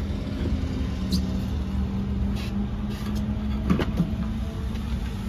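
Steady low hum of an idling vehicle engine, with a few short knocks and clicks from hands and tools working at a motorhome's wheel.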